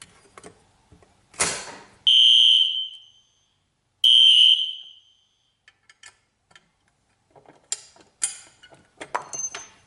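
A sharp clack as a T-bar fire alarm pull station is pulled. Then the fire alarm horn gives two short, high-pitched blasts of about a second each, two seconds apart, as the panel in walk-test mode signals that the pull station has tripped. A few lighter clicks follow.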